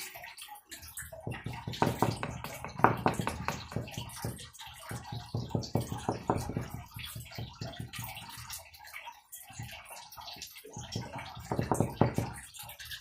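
A paintbrush dabbed rapidly against a wooden cutting board to stipple paint into a rough, rusty-looking texture: dense runs of soft taps in several spells with short pauses between.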